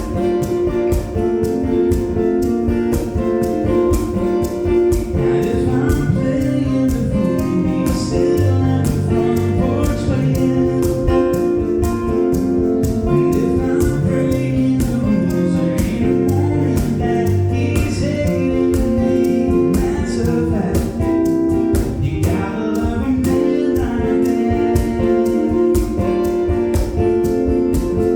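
Gospel-style song: singing over instruments with a steady beat and a bass line.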